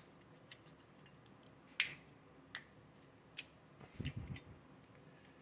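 Light clicks and taps of small metal chainsaw parts being handled on a workbench, with two sharper clicks around two seconds in and a short cluster of soft knocks about four seconds in.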